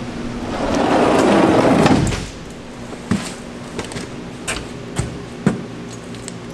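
About two seconds of a rough rushing noise that swells and fades. Then several sharp knocks, about half a second apart: work boots stepping on the tool truck's aluminium diamond-plate steps.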